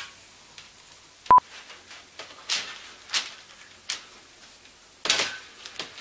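Close handling noise from a red wire and a black plastic wire loom: a string of short rustles and scrapes as the wire is uncoiled and fed in, with a longer rustle about five seconds in. There is also one brief sharp beep about a second in.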